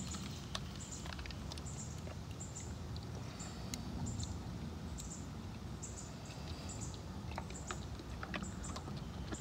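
Short high-pitched bird chirps repeating about once or twice a second over a steady low rumble, with a few faint clicks from plastic sprinkler-valve parts being handled in a muddy valve box.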